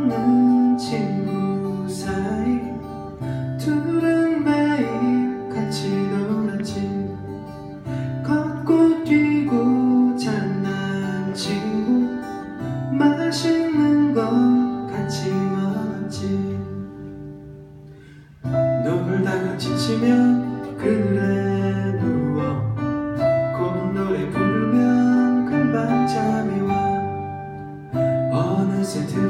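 Live acoustic guitar strummed in chords, with a man singing into a microphone. The playing fades out about two-thirds of the way through and comes back in suddenly.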